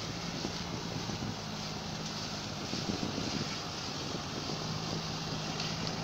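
Heavy diesel engines of a sugarcane harvester and the semi truck it is loading, running steadily under load as chopped cane is elevated into the trailer. The engine hum weakens for a few seconds in the middle, then comes back.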